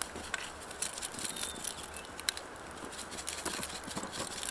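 Faint, irregular light ticks and crackles: seasoning shaken from a shaker pattering onto foil around cleaned trout, with a small campfire crackling.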